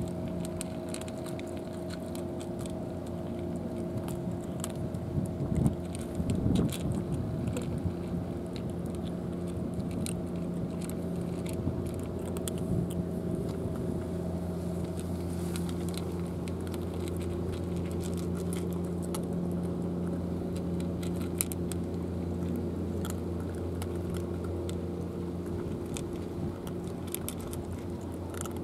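Two cats crunching dry kibble, a run of small, irregular crisp cracks, over a steady low engine hum.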